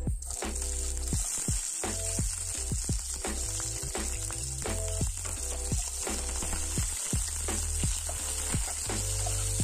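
Sliced green chillies and ginger dropped into hot oil in a nonstick pan, frying with a steady sizzle that starts as they go in, and a spatula stirring them near the end. A music track with a regular beat plays underneath.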